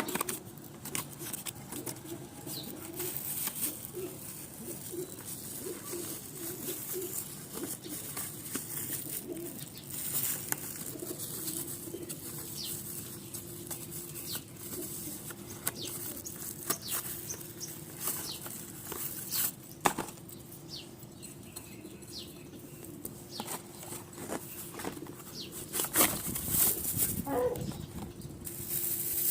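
Tripod packaging being opened and handled: rustling and crinkling with scattered sharp clicks and taps.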